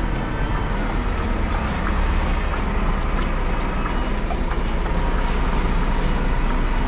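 Scania G410 truck's 13-litre inline-six diesel engine running steadily as the truck drives, with road noise.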